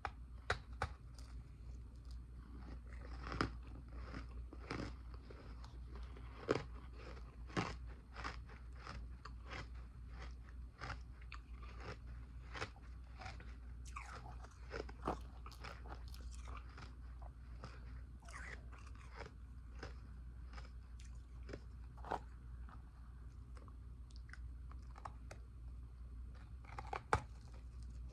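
Close-miked biting and chewing of powdery and nugget ice: a dense, irregular run of crisp crunches, with louder single bites every few seconds.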